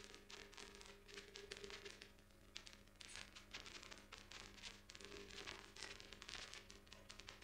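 Near silence: faint room tone with a low steady hum and faint, irregular crackling clicks.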